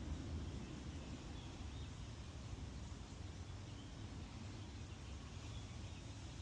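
Faint outdoor ambience: a steady low rumble with a few faint, brief high chirps.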